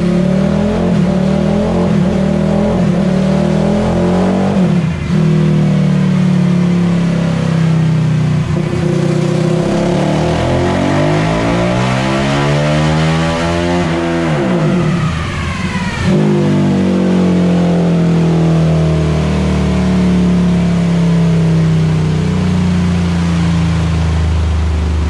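Single-cylinder four-stroke Honda CRF450 engine in a TRX450 quad, running on a roller dyno. It runs steadily, then the revs climb for about five seconds in a dyno pull and drop off sharply when the throttle closes, before it settles back to a steady run.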